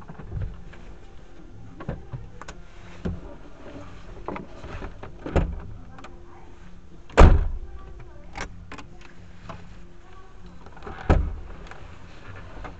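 Car cabin heard through a dashcam microphone: a low steady rumble with scattered knocks and clunks. The loudest thump comes about seven seconds in, and another about eleven seconds in.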